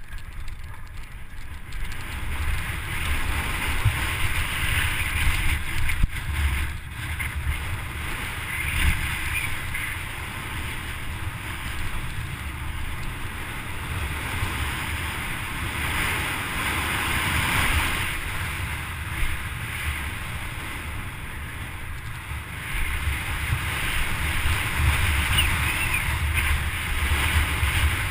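Wind buffeting a helmet-mounted camera's microphone and tyres rolling over dirt and gravel as a mountain bike descends at speed; the rush swells and eases with the terrain.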